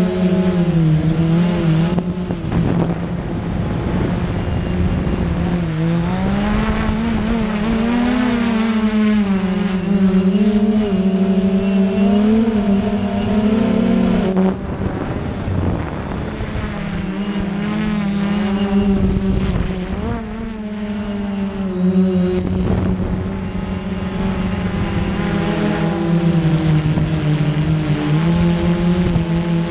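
Mine Kafon mapping drone's electric motors and propellers humming in flight, the pitch wavering up and down as the throttle changes.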